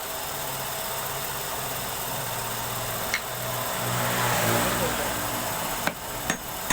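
Wood lathe running: a steady motor hum under an even hiss, with a sharp click about three seconds in and two more near the end.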